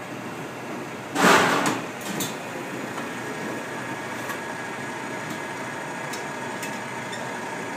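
Electric mixer running steadily while creme anglaise is being frozen with liquid nitrogen. About a second in there is a sudden loud rush of noise lasting about half a second, followed by a few light clicks.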